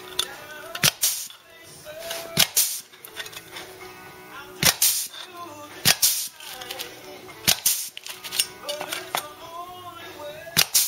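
Hole punch snapping through steel repair-panel sheet about ten times at irregular intervals, each stroke a sharp crack, as it makes spot-weld holes. Background music plays under it.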